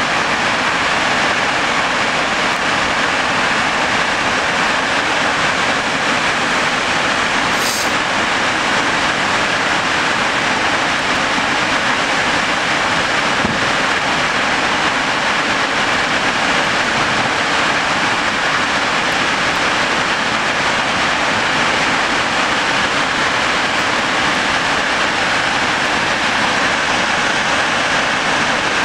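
Snoqualmie Falls, a large waterfall in full flow, making a loud, steady rushing roar of plunging water.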